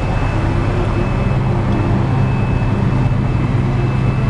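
Tour boat's motor running steadily, a constant low hum.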